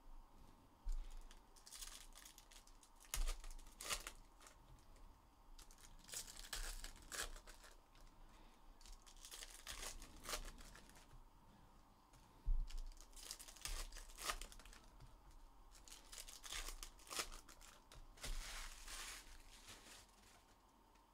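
Foil trading-card pack wrappers being torn open and crinkled, faint, in repeated short bursts.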